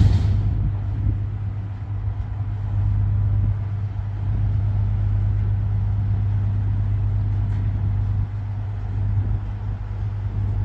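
Bus diesel engine running at low speed with a steady low drone.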